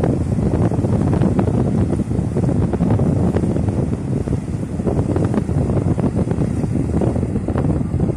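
Wind buffeting the microphone: a loud, uneven low rumble that gusts throughout.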